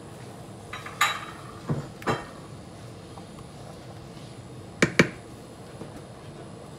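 A spoon knocking and clinking against a cooking pot while rice and water are stirred: a few sharp knocks from about a second in, then a quick pair near five seconds.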